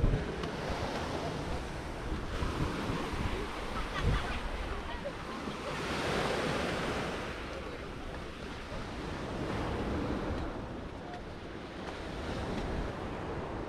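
Small Adriatic waves washing onto a pebble-and-gravel beach, the wash swelling and fading every few seconds, with wind buffeting the microphone in a few low thumps.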